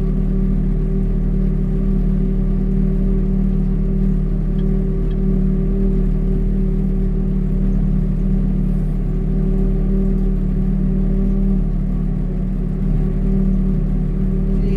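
Tractor engine running at a steady speed, a constant low drone with no change in pitch.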